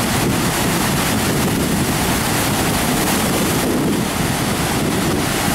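Steady rushing of high flood-release water pouring through the Gavins Point Dam spillway on the Missouri River, at about 150,000 cubic feet per second, with wind buffeting the microphone.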